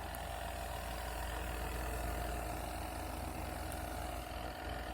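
Spin-dryer motor of a compact twin-tub washing machine running steadily on its spin cycle, with the tub balanced. It makes a quiet, even hum with a low rumble.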